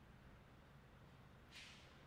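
Near silence: faint low background hum, with one brief, faint high-pitched hiss about one and a half seconds in.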